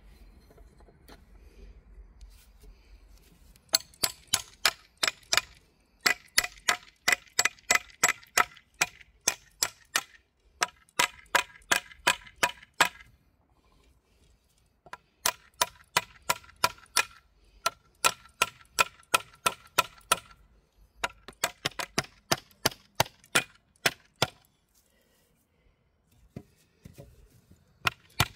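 Hammer peening a scythe blade on a small anvil set in a log: runs of sharp, ringing metal taps at about four a second, broken every few seconds by short pauses.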